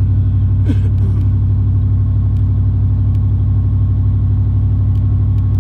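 Vehicle engine running with a steady low drone while driving.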